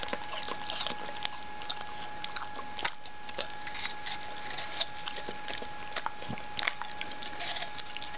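Dog biting and chewing a piece of apple held in a hand: irregular small crunches and wet clicks of the teeth on the fruit.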